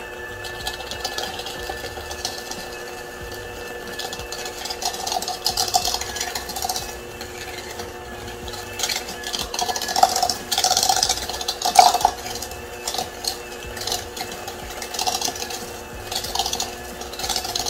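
KitchenAid electric hand mixer running with a steady motor whine, its beaters clattering and scraping against the bowl in irregular bursts, loudest about ten and twelve seconds in. It is creaming butter and sugar for a cake batter.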